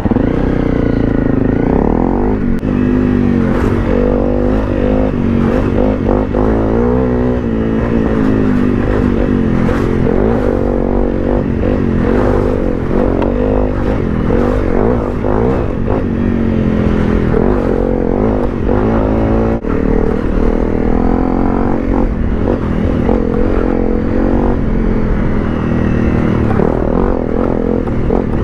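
Honda CRF250 Rally's single-cylinder engine revving up and down again and again as the trail bike rides off-road, with clattering knocks from the bike over rough ground.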